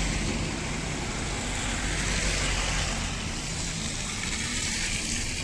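Car engine running steadily under a steady high hiss, from a car stuck in the snow.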